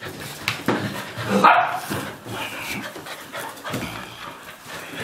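Golden retriever puppies playing, with one loud puppy bark about a second and a half in, among short clicks and scuffles.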